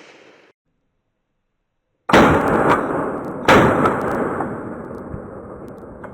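Two gunshots about a second and a half apart, each with a long rolling echo that fades away, followed by the hunters' shots at wild hogs.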